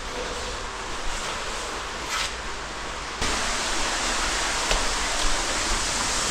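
Steady rush of an underground waterfall in a cave, which becomes suddenly louder and brighter about three seconds in.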